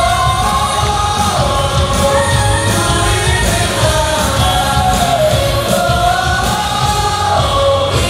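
Music with singing: a sung melody over a steady bass beat.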